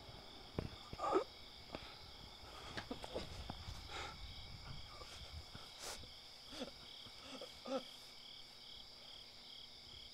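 Crickets chirring steadily in a night-time field, with a few scattered soft knocks and brief low sounds.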